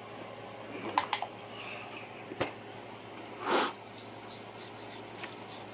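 Small handling noises from cleaning flux off a circuit board with isopropyl alcohol: a few light clicks and taps, and a brief scrubbing swish about three and a half seconds in, over a steady low hum.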